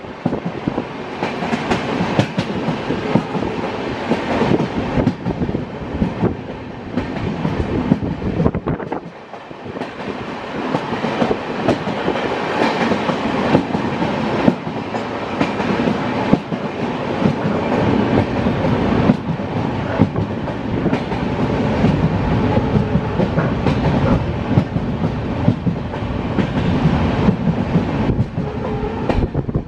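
Indian Railways passenger coach running at speed, heard at its open doorway: a continuous rumble and rush of running noise with frequent clacks of the wheels over the rail joints. The noise dips briefly about nine seconds in.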